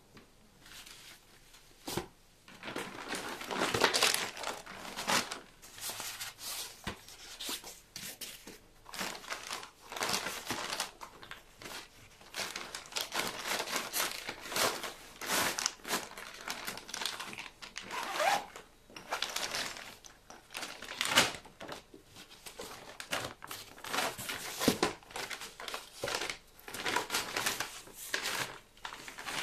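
Folding food delivery bag being handled and opened out: its stiff PVC-coated shell and foil-lined insulated panels rustle and crinkle in irregular bursts, with a few sharp clicks.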